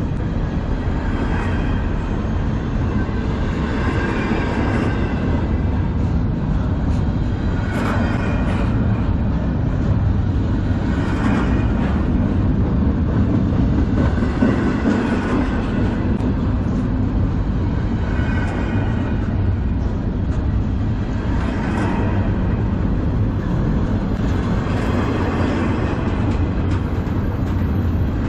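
Freight cars of a manifest train rolling past at close range: a steady heavy rumble with a wheel clack recurring every three to four seconds.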